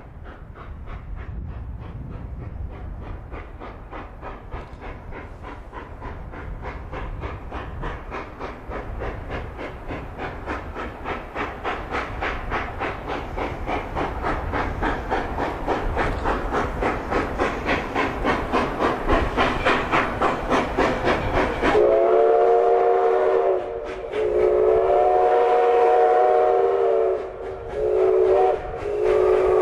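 Canadian National 3254, a 2-8-2 steam locomotive, working toward the listener with a steady beat of exhaust chuffs that grows louder as it approaches. About 22 seconds in, its chime steam whistle blows several notes at once in a long, long, short, long pattern, the grade-crossing signal.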